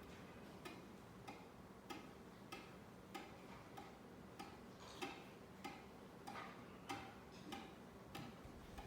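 Ceiling fan knocking faintly and regularly, about three light knocks every two seconds.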